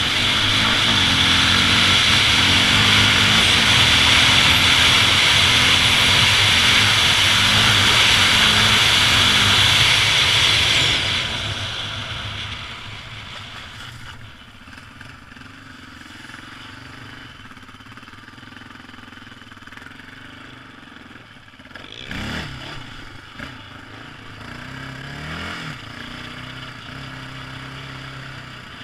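Quad (ATV) engine running hard under a loud rushing noise, then easing off about eleven seconds in to a quieter, low steady run. Two short revs come later, the second with a rising pitch.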